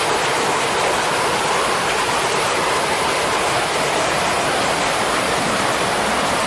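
Rushing floodwater, a loud, steady, unbroken noise.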